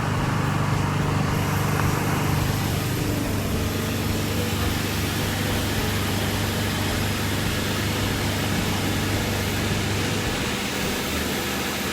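Steady low machinery hum with a constant hiss, changing slightly in tone a couple of seconds in and again near the end.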